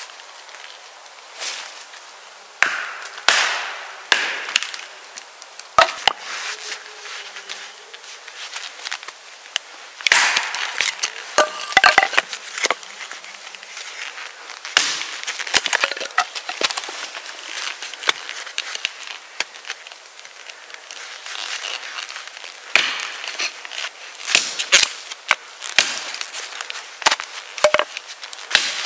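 Hatchet chopping and splitting wood: irregular sharp strikes of the blade into the wood, some in quick clusters, with the wood cracking.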